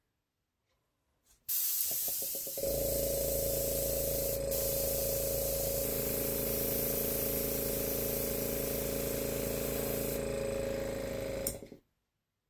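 Airbrush blowing a steady stream of air over wet acrylic pour paint, with the steady hum of its air compressor motor. The hiss starts about a second and a half in, the motor hum joins a second later, and both cut off together near the end.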